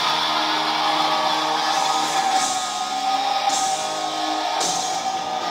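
Rock music with guitar, played loud and steady.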